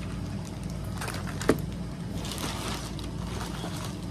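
Plastic packaging crinkling as a small package of press-on nails is handled and opened, with one sharp click about a second and a half in, over a steady low hum.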